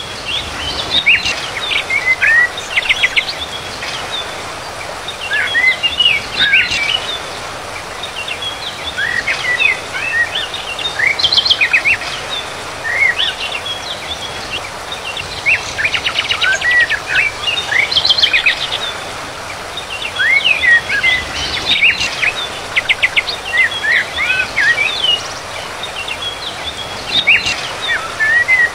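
Small songbirds chirping, with short rising and falling whistles and quick rattling trills every few seconds, over a steady background hiss.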